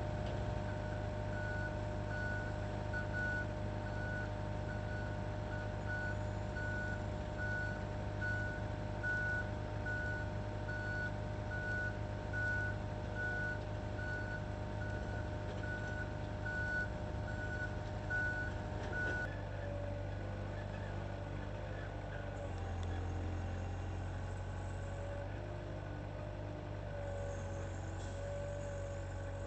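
Moffett truck-mounted forklift's backup alarm beeping steadily a little faster than once a second over a constant engine drone. The beeping stops about two-thirds of the way through and the engine note shifts.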